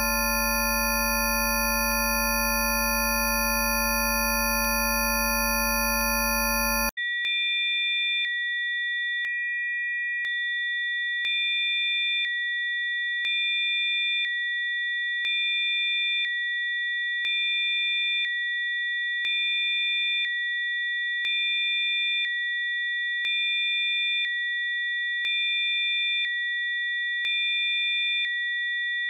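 Electronically generated Rife-frequency sine tones. A dense chord of many steady pure tones, low to very high, cuts off about seven seconds in and switches to three steady high tones with a slight pulse about every two seconds.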